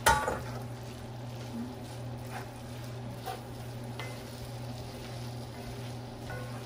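Shrimp landing in a cast-iron skillet of jambalaya with a brief loud clatter at the start, then a wooden spoon stirring and scraping through the rice mixture while it sizzles softly.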